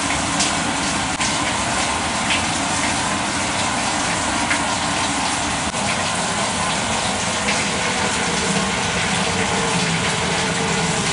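Washing machine filling with water: a steady, even rush of water pouring into the drum.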